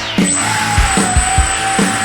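Background rock music with a steady drum beat, over the steady high whine of a small brushless motor and propeller driving an RC hovercraft. The whine dips sharply at the start as the throttle comes off, then picks up again.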